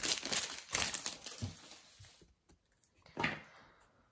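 Plastic wrapper of a Match Attax trading-card packet being torn open and crinkled in quick bunches, fading out about two seconds in.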